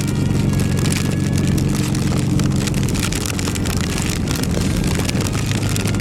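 Harley-Davidson Dyna's V-twin engine running at a steady road speed while riding, its note easing slightly about halfway through.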